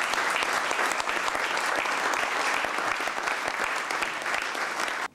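Audience applauding, many hands clapping in a dense, even patter that holds steady, then cuts off abruptly at the end.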